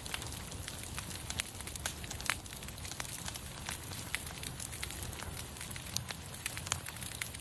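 Crackling of a fire played as an exhibit sound effect: a steady hiss with irregular sharp pops.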